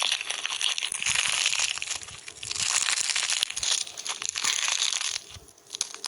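Dense crackling and crunching, as of something being crushed, in long loud spells that drop away about five seconds in.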